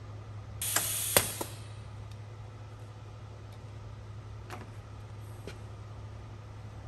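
A short burst of compressed-air hiss with a few sharp clicks about a second in, from the cartridge filler's pneumatics, over a steady low hum. Later there are two faint clicks as the plastic cartridge is handled.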